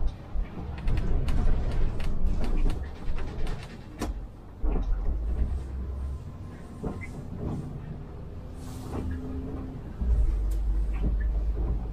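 Inside an Iveco Urbanway 12 diesel city bus on the move: a low engine rumble that swells and eases several times as it pulls and slows, with cabin rattles and clicks throughout and a brief hiss a little past the middle.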